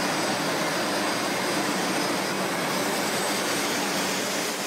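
500 Series Shinkansen train running, a steady rushing noise with a faint low hum underneath.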